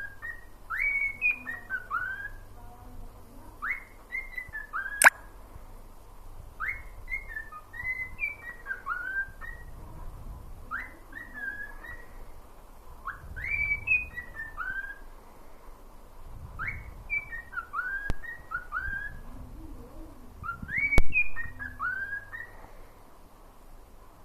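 Cockatiel whistling a tune: the same short phrase of clear rising and falling notes, repeated about every three seconds, seven times over. A few sharp clicks cut in, the loudest about five seconds in and near twenty-one seconds.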